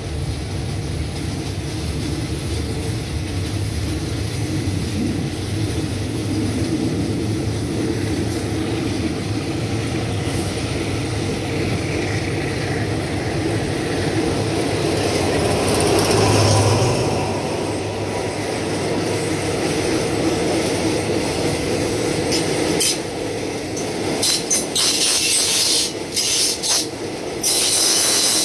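Diesel-hauled passenger train passing on the adjacent track: the locomotive's engine rumble grows and is loudest a little past halfway, then its coaches roll by close at hand with rapid wheel clatter over the rail joints in the last few seconds.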